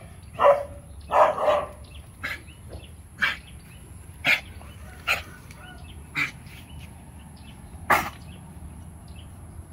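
Dog barking in short, sharp single barks, roughly once a second, the loudest in the first couple of seconds and one more near the end. A thin, steady high-pitched tone runs underneath.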